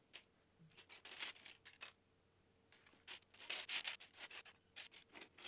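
Loose plastic Lego bricks clicking and rattling faintly as a hand rummages through a pile of pieces on a wooden tabletop. The clicks come in clusters, about a second in, most busily three to four seconds in, and again near the end.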